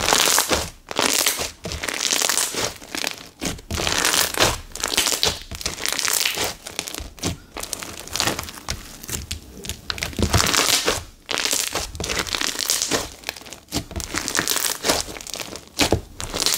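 Silica-bead slime in a white glue base being squeezed, folded and pressed flat by hand, giving bursts of crackly popping about once a second. The beads are loosely packed in the base, so the crunch is light rather than dense.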